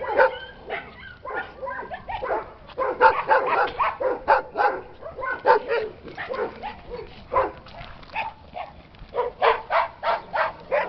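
Dogs barking over and over, short barks coming in quick runs with brief gaps between them.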